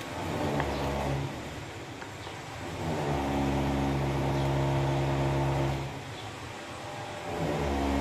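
A motor running with a steady, unchanging hum. It drops away about a second in and again near six seconds, and picks up again about three seconds in and near the end.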